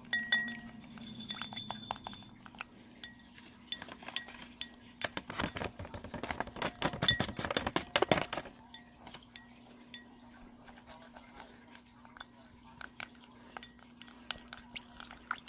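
A spoon stirring slime in a glass bowl, clinking and scraping against the glass: scattered clicks, with a fast run of clinks from about a third of the way in until just past the middle.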